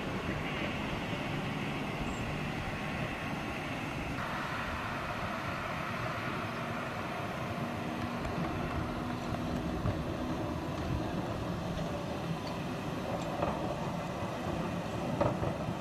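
A heritage electric tram running along a street track amid passing road traffic, heard as a steady rumble. The sound changes abruptly about four seconds in, and a few sharp knocks come near the end.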